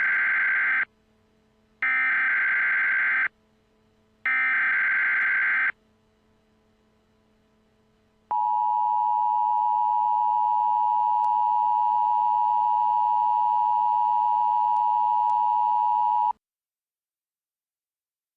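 Emergency Alert System tones: three short digital data bursts of the SAME header, each about a second and a half long. After a short pause comes the steady two-tone EAS attention signal for about eight seconds, which cuts off suddenly.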